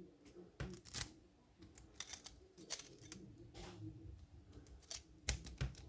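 Faint, irregular small metallic clicks and scrapes of keys being slid into and tried in a 30 mm brass padlock, one key failing to turn it.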